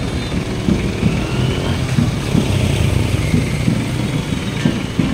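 Motor vehicle engines running at low speed close by, a steady low rumble.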